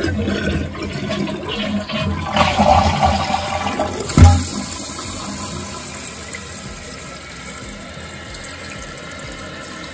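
Toilet flushing through a new Fluidmaster adjustable flapper: a loud rush of water draining from the tank, a thump about four seconds in as the flapper drops shut, then a steady quieter hiss as the tank refills.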